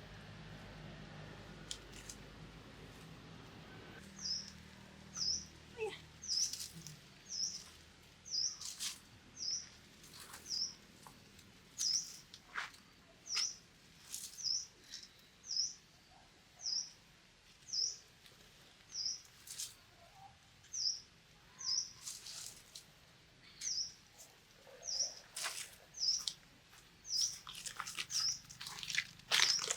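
A bird chirping over and over, one short high chirp about every second, with a few faint clicks and knocks in between.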